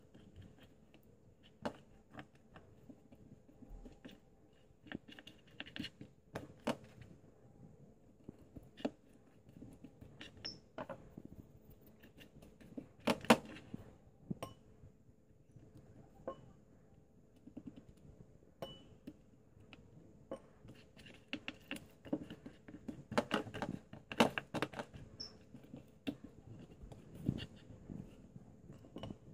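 Hands working seasoning into raw steaks on a ceramic plate: soft, wet handling with scattered taps and clinks against the plate. A sharper knock comes about halfway through, and a cluster of knocks comes in the last third.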